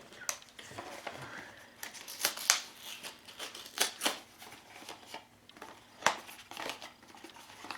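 Cardboard and packaging of a small blind box being handled and opened: an irregular run of sharp clicks and crinkles, the loudest about two and a half seconds in and again about six seconds in.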